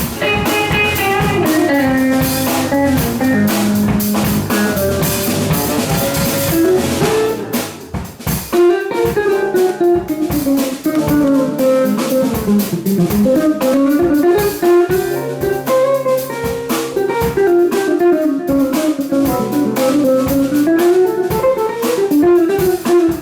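Band playing a jazz-funk groove: guitar and drum kit with a bass line under them, and a winding melody line carrying on after a brief drop in the music about eight seconds in.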